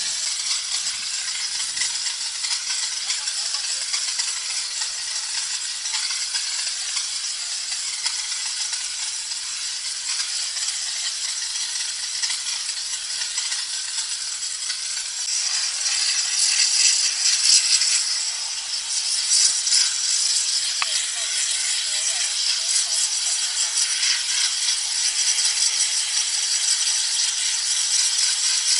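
Steam jet from the spray lance of an industrial steam cleaning machine hissing steadily as it is played over a bus, growing louder a little past halfway.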